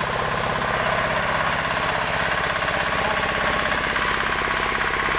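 The 18-horsepower single-cylinder diesel engine of a new sawmill, running steadily on test with a fast, even chugging.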